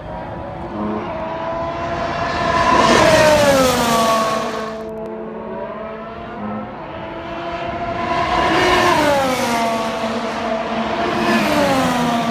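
Formula 1 cars' 1.6-litre turbocharged V6 hybrid engines at speed on the circuit, passing twice about six seconds apart. The engine note is loud and falls in pitch as each car goes by.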